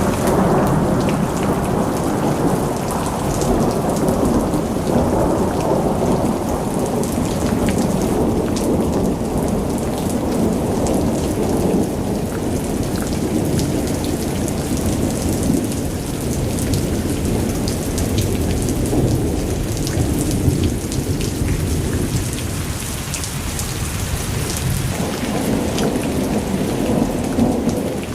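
Heavy monsoon downpour: steady, dense rain with a deep rumble under it and sharp ticks of drops hitting surfaces, easing slightly a little after the middle before building again.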